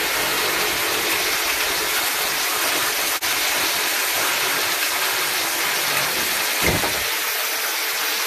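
Power saw running steadily, a loud continuous cutting noise with a momentary break about three seconds in.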